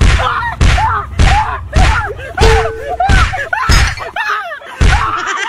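A rapid series of punches or slaps landing on a body, about eight hits spaced a little over half a second apart with a longer pause before the last one. Short, pained yelps sound between the hits.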